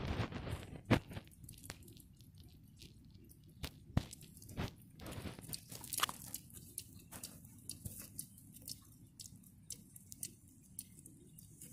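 Young hedgehogs foraging in dry leaf litter: irregular small crunches, crackles and rustles as they push through leaves and twigs and snuffle and chew, busiest in the first second.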